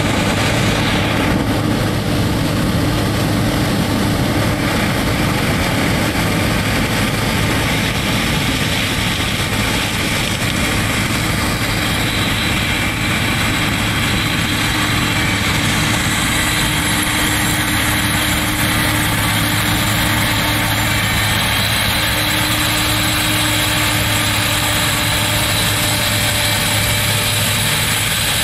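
Claas Lexion 570C combine harvester working through standing maize with its corn header: the engine and machinery run at a steady, unchanging drone.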